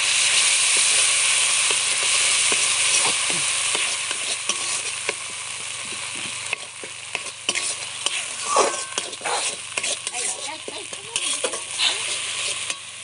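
Spice paste frying in hot oil in a kadai: a loud sizzle that dies down after about four seconds, while a metal spatula scrapes and taps against the pan stirring it. The sound cuts off abruptly shortly before the end.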